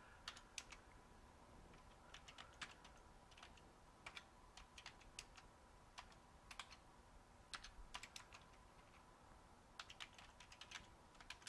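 A computer keyboard being typed on: faint key clicks in short, uneven runs with pauses between them.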